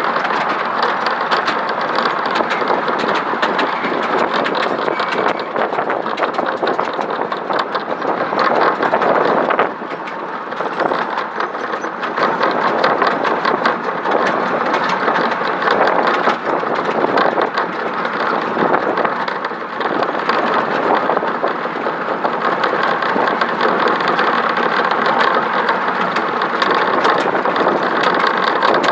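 Miniature railway train running along narrow-gauge track: a steady rumble and clatter of wheels on the rails, dipping briefly about ten seconds in.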